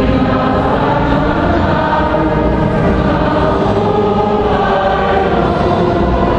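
A choir singing a slow sacred hymn, many voices together holding long notes without a break.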